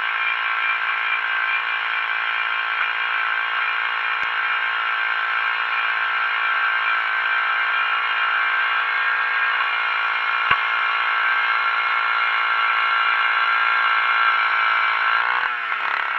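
Powered ice auger drilling through lake ice, its motor running steadily at speed with a high whine and a couple of sharp clicks. Near the end the motor slows and winds down as the hole is finished.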